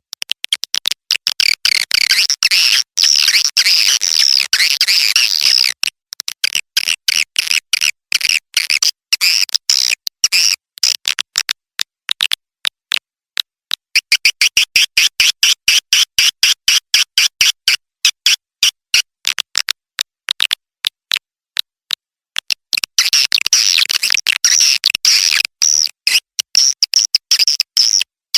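Swiftlet lure call recording: rapid runs of sharp clicks and high chirps, thickening at times into dense twittering trills, with abrupt dead-silent gaps between them. It is a call track of the kind played in swiftlet houses to draw birds in, this one mimicking the response of swiftlet chicks.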